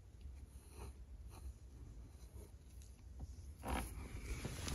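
Faint scraping and dabbing of a flat screwdriver packing black RTV silicone into a car's upper door seal gap, over a low steady hum. A louder handling rustle comes near the end.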